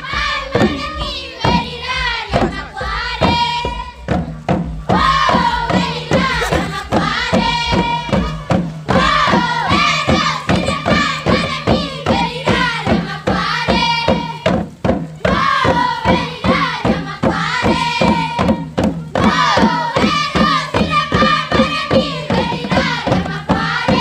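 A group of voices singing a Biak wor song in repeated phrases, over a fast steady beat of hand drums.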